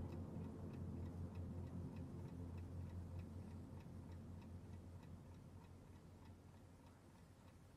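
Steady faint ticking, about three ticks a second, over a low drone that slowly fades away.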